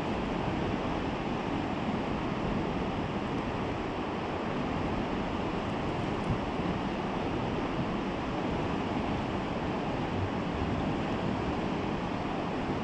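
Steady rushing noise of fast-flowing river water below a sluice gate, mixed with wind.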